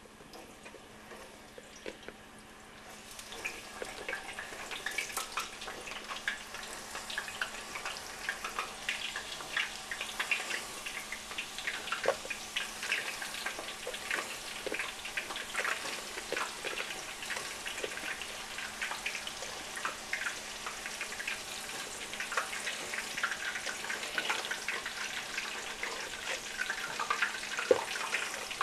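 Hot oil sizzling and crackling as raw sweet potato slices are dropped in one at a time for deep-frying into chips. The sizzle starts about three seconds in and builds to a dense crackle of small pops.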